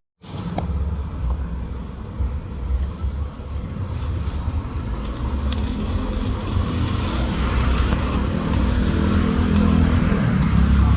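A motor vehicle engine running steadily, growing gradually louder toward the end.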